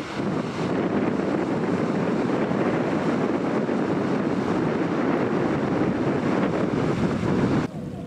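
Steady rushing noise of a high-speed catamaran ferry passing, its engines and wake mixed with wind on the microphone. The noise drops away suddenly near the end.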